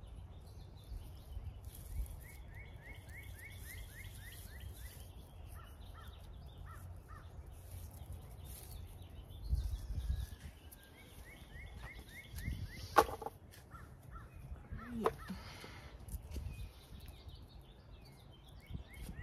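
Birds calling: a fast trill of short repeated notes heard twice, a few seconds in and again about twelve seconds in, and a single harsher call a little later. A low rumble runs underneath, and there is one sharp click.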